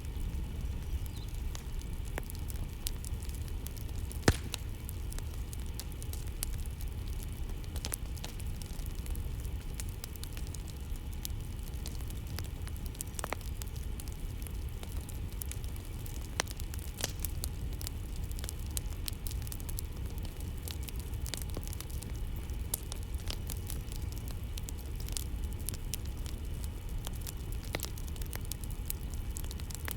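Campfire burning: a steady low rumble of flames with scattered crackles and pops from the burning wood, one sharp pop about four seconds in standing out above the rest.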